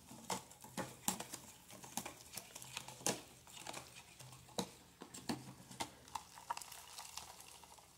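Metal spoon stirring caustic soda into a little water in a plastic tub, making irregular light clicks and scrapes against the tub's sides as the soda is dissolved.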